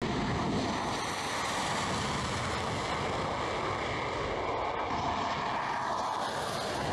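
Jet engine noise from Sukhoi Su-25 attack jets taking off and flying low, steady and loud.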